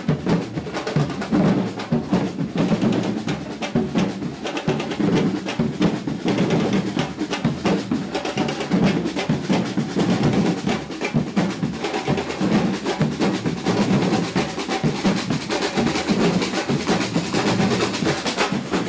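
Batucada drum corps playing together: large surdo bass drums and snare drums struck with sticks and mallets in a steady, dense, loud rhythm.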